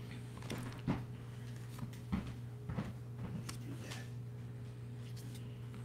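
A few soft taps and rustles of baseball cards being slid through a stack in the hands, over a steady low hum.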